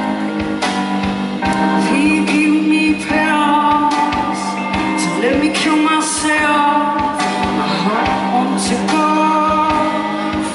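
Live music: a woman singing into a microphone over steady held notes of instrumental backing.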